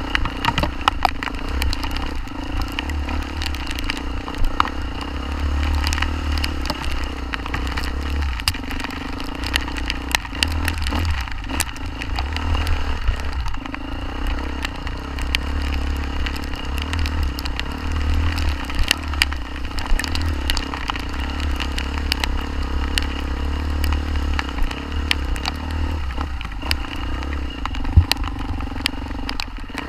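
Off-road motorcycle engine running at a fairly steady pitch, with heavy wind rumble on the action-camera microphone and frequent sharp clicks and clatter.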